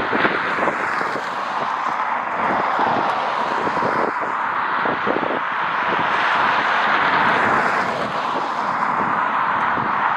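Jet airliner engines running with a steady roar that swells a little toward the middle, while strong gusts of wind buffet the microphone.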